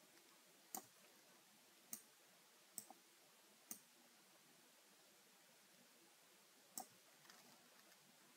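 Faint computer mouse clicks: five or six single clicks spread out, one pair close together, over near-silent room tone.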